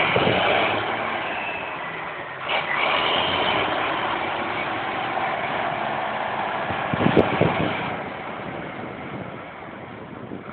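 Zetor 16145 tractor's six-cylinder diesel engine running as it drives through a flooded creek, its tyres churning and splashing the water. The sound fades as the tractor moves away, with a short louder burst about seven seconds in.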